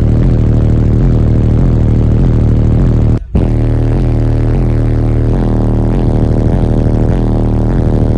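The truck's high-power car-audio subwoofers play bass-heavy music very loud, heard inside the cab, with a deep, repeating bass line. The sound cuts out for a split second about three seconds in.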